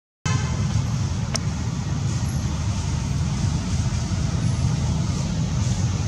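Steady low rumbling noise, with a brief gap of silence right at the start.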